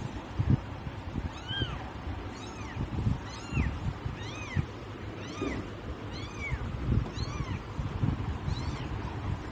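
A three-week-old kitten mewing: a run of short, high-pitched mews, each rising then falling in pitch, about one a second or a little faster. Low dull bumps and rumble sound underneath.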